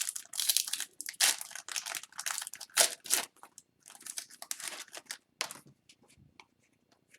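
Hockey card pack wrapper crinkling and tearing in irregular rustling bursts as the pack is opened and handled, dying away to a few faint ticks about five and a half seconds in.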